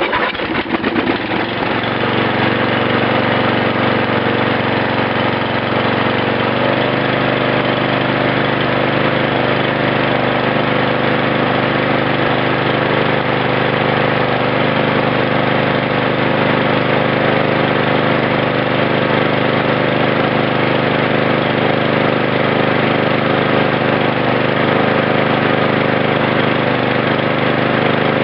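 8 hp Briggs & Stratton single-cylinder mower engine catching right at the start and then running steadily at one speed, its pitch settling slightly about six seconds in.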